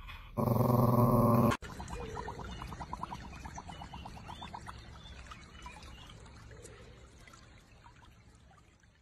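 A small dog gives a drawn-out, growly 'awa awa' vocalization on cue, lasting about a second before it cuts off sharply. Then comes a much quieter stretch of noise that fades out, with a quick run of light ticks in it.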